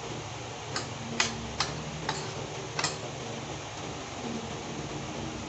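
Five light, sharp clicks over about two seconds, starting just under a second in: tableware tapping during a meal. A steady low hum runs underneath.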